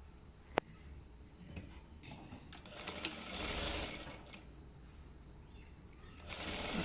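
Sewing machine stitching in short runs: a sharp click about half a second in, a run of stitching from about two and a half to four and a half seconds, and another run starting near the end.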